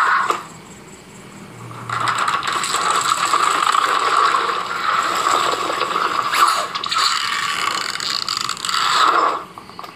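Sound effects of a Dolby logo trailer playing through an Acer One 14 Z2-485 laptop's speakers. A short burst comes at the very start. A continuous busy mechanical-sounding effect runs from about two seconds in and stops shortly before the end.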